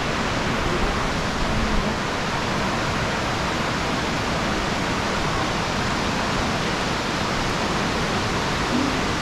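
Steady rushing of a large waterfall, Tumpak Sewu's water crashing into the gorge, an even wall of noise with no letup.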